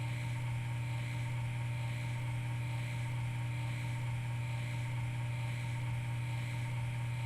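Steady low machine hum of a CNC lathe running a roughing program, holding one even pitch throughout.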